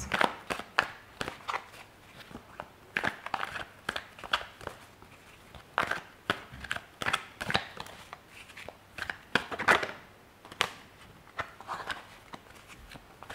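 A deck of Lenormand cards shuffled between the hands: irregular bursts of quick card flicks and snaps, with short pauses between the bursts.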